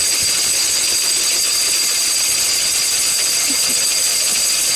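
Lister D single-cylinder stationary engine running steadily, belt-driving a small corn grinder that turns empty, with no corn in it. The sound is noisy and even, with a steady high-pitched whine over it.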